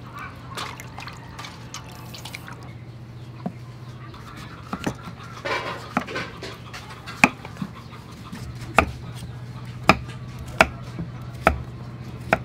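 A cleaver cutting raw pumpkin on a wooden chopping block. There is a crunch as the blade goes through the flesh about halfway, then sharp knocks of the blade on the block about once a second in the second half.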